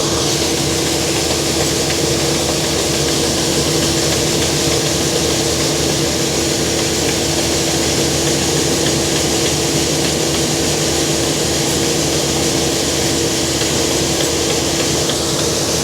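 A combine harvester almost 40 years old, running steadily as it harvests barley: a constant engine and machinery drone with a steady hum, unchanging throughout.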